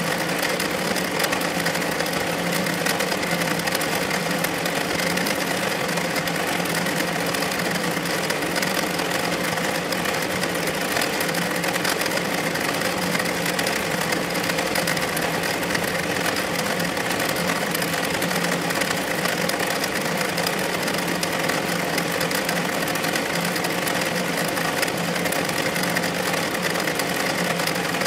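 Redline Mini multi-needle embroidery machine running steadily, stitching a design into fabric held in its hoop.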